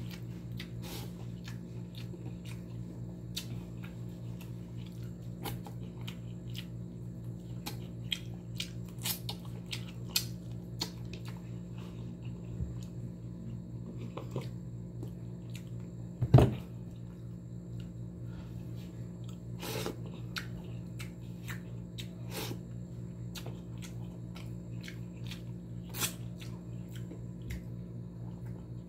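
Close-up mukbang eating sounds: chewing and lip smacks, with many small irregular clicks of fingers picking fish and rice off a plate. There is one louder knock about sixteen seconds in, all over a steady low hum.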